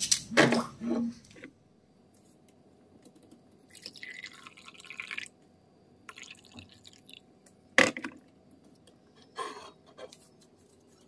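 Hot water being poured into a drinking vessel in two short pours, followed by a single sharp knock about eight seconds in.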